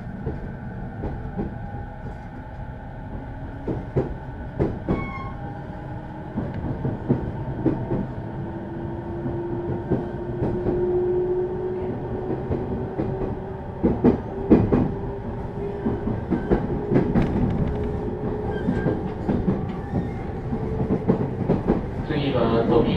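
Running sound inside a JR East 209 series 2100 subseries electric train car: a steady rumble with a motor tone that rises slowly in pitch, and repeated clicks from the wheels over rail joints. Near the end a louder pitched sound comes in.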